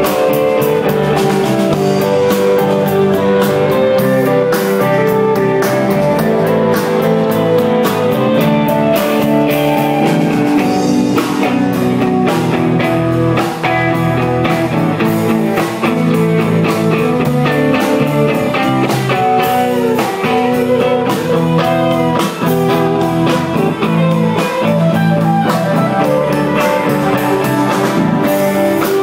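Live rock band playing: guitars over a drum kit keeping a steady beat, loud throughout.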